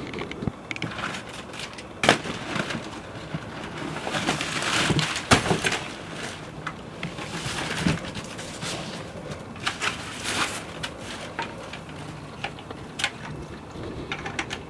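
A cardboard box and its packaging being handled and opened: rustling and crackling with scattered sharp knocks and clicks.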